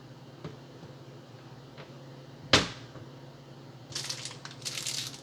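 One sharp knock about halfway through, then plastic packaging crinkling and rustling from about four seconds in as a pack of cheese slices is handled, over a low steady hum.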